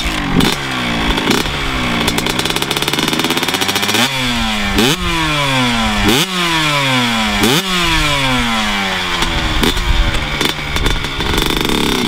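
2005 Honda CR125's single-cylinder two-stroke engine revving: several sharp rises in pitch, each falling away again as the throttle is let off.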